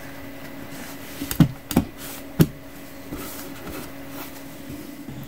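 Handling noise from pinning a fabric stiffener onto a cap piece: a few short knocks and clicks a second or two in as the hands work the fabric and push straight pins through, over a steady low hum.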